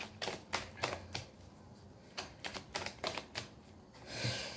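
A deck of tarot cards being shuffled by hand: a run of quick, irregular slaps and snaps as the cards are worked between the hands, pausing for about a second partway through and then carrying on.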